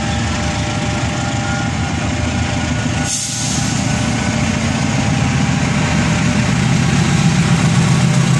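Diesel engine of a KAI CC 206 diesel-electric locomotive running under power as the train approaches, a deep pulsing engine note that grows steadily louder.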